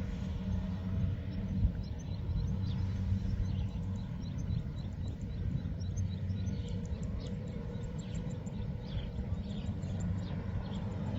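Heavy machinery's engine running steadily with a low hum. Many short high chirps sound over it from about three seconds in.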